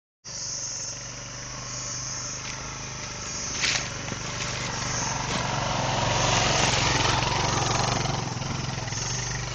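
Vintage Honda trail bike's small single-cylinder four-stroke engine running at idle. It grows louder from about halfway through. A sharp knock comes about three and a half seconds in.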